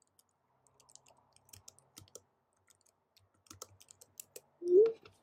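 Scattered light clicks and taps, like a computer keyboard and mouse being worked, then near the end one short, loud vocal sound rising in pitch.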